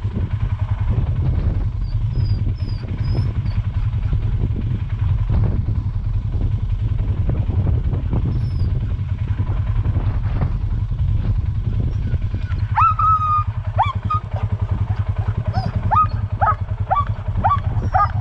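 A small engine idling steadily, with a low rumble throughout. From about two-thirds of the way in, harnessed sled dogs start whining and yipping in short, high, rising-and-falling calls, more and more of them toward the end.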